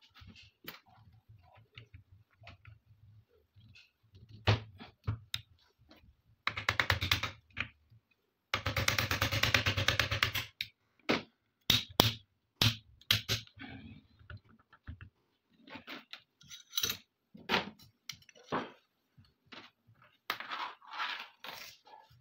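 Steel parts of an AK-47 rifle being handled and fitted together during reassembly: a run of sharp metal clicks and clinks, with two longer spells of fast rattling about a third of the way in.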